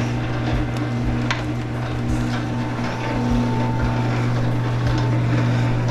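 Electric wire-stripping machine running with a steady low hum and a fainter higher tone, with a few light clicks and knocks.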